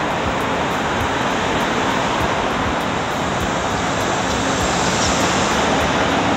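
Steady rushing noise of passing street traffic, with no separate horn, voice or knock standing out.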